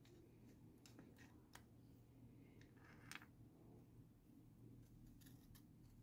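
Near silence: a low steady hum with a few faint, irregular clicks of hand tools on the engine as a timing chain guide bolt is worked loose, the loudest about three seconds in.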